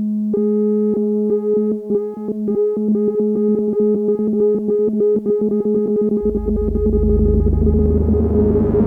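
Electronic synthesizer music: a held low drone under a repeated short synth note that speeds up. A deep bass comes in about six seconds in, with a rising hiss near the end.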